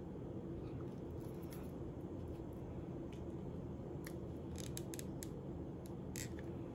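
Faint crafting handling sounds: a run of short, sharp clicks and ticks about four to six seconds in as small wooden seahorse pieces and a hot glue gun are handled, over a steady low hum.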